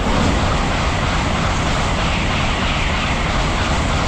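Tokaido Shinkansen bullet train passing through the station at high speed without stopping: a loud, steady rushing noise from low rumble to high hiss.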